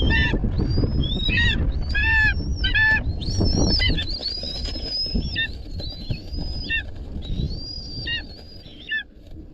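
Eagle calling over and over: a run of high, thin calls, some drawn out and others short and falling, with a low rumble underneath.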